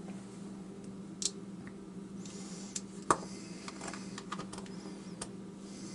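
Irregular small clicks and taps of hard metal parts and hand tools being handled as an opened padlock is taken apart, about a dozen scattered strikes, a few louder than the rest, over a steady low hum.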